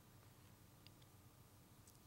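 Near silence: room tone with a faint steady hum and a couple of tiny clicks.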